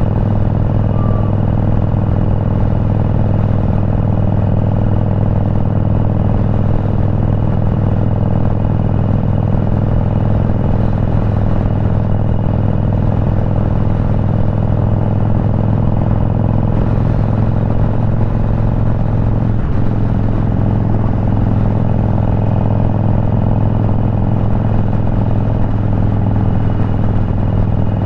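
Motorcycle engine running at a steady cruise, an even low drone that holds one pitch.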